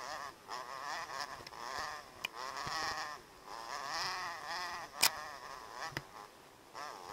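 Dirt bike engine buzzing, its pitch rising and falling over and over as the throttle opens and closes on a rough trail. Several sharp knocks break in, the loudest about five seconds in.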